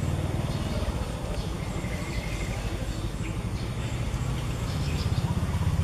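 Low, steady engine rumble, growing louder near the end, with a few faint bird chirps above it.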